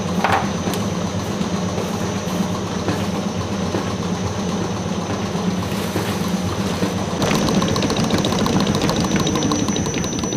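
A large bakery planetary mixer's motor running steadily, with a few light clicks of steel cake rings being set on the counter. About seven seconds in the sound changes and gets a little louder, with a fast rattle as the whisk beats the sponge batter.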